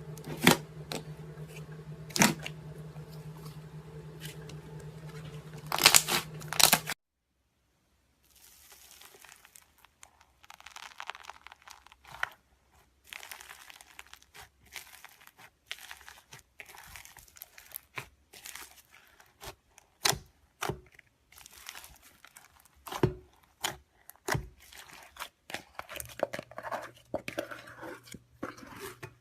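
Slime being handled: a run of irregular crackling, popping and crunching clicks. The sound cuts off abruptly about seven seconds in, and the crackling resumes shortly after.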